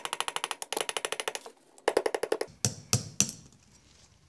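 Hand tools working on a Johnson 15 HP outboard powerhead: a rapid run of small metal clicks, about a dozen a second, that breaks off about a second and a half in, a short second run, then three separate knocks.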